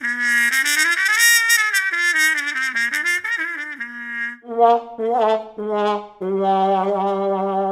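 Comic trumpet music cue: a wavering, sliding melody for about four seconds, then a few short notes, ending on a long held low note.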